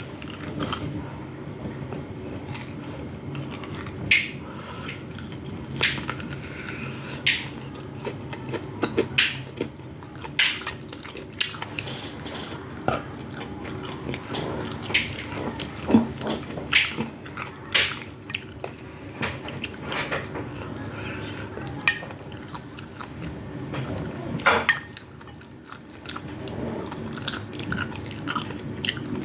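A person chewing and biting food close to the microphone, with irregular wet smacks and clicks of mouth sounds.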